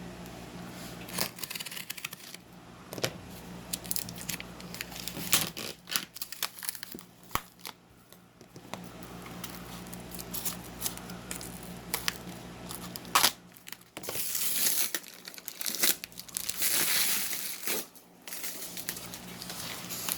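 A cardboard shipping box being opened by hand: packing tape and cardboard tearing, with packaging crinkling and scattered clicks and knocks. There are two longer tearing stretches near the end.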